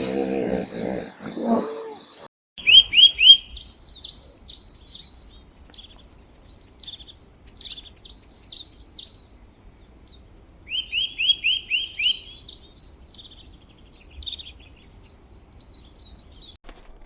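A songbird singing: two long phrases, each opening with a quick run of down-slurred notes and going on into a high, rapid warble. A different animal's pulsed call cuts off about two seconds in, before the song starts.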